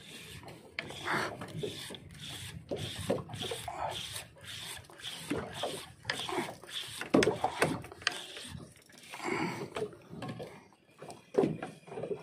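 Irregular rubbing and scraping in short strokes, with a few sharper knocks, the loudest about seven seconds in.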